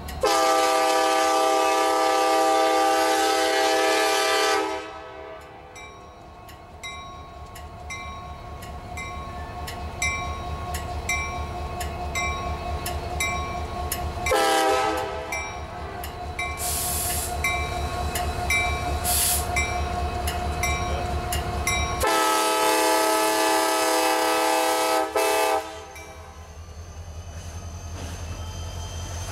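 Diesel freight locomotive sounding its multi-chime air horn for a grade crossing: a long blast, a short blast about fourteen seconds in, then another long blast about twenty-two seconds in. Between the blasts a crossing-signal bell rings steadily, and the locomotive's diesel rumble grows louder near the end as it reaches the crossing.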